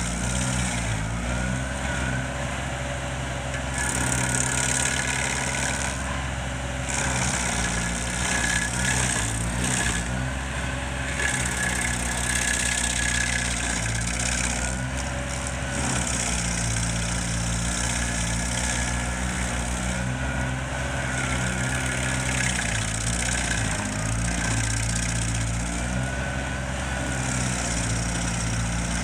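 Stump grinder running hard as its toothed cutter wheel chews into a tree stump and sprays chips. The engine holds a steady drone but its pitch dips and recovers again and again as the wheel bites in, and a harsh high hiss of cutting comes and goes every few seconds with each sweep.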